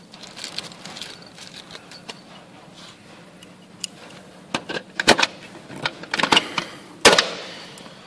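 Hand pop-rivet tool being worked to fix the lock's bottom rivet into the aluminium frame: a run of sharp metal clicks that starts about halfway through and ends in a loud snap with a short ring.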